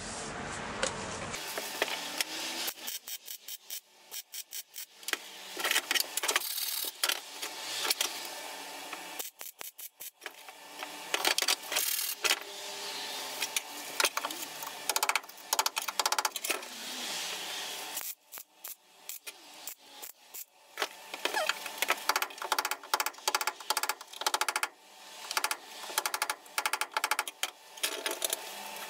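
Hand tool scraping and brushing bare steel around a welded repair patch on a car's inner wheel tub, in runs of quick scratchy strokes with short pauses between them.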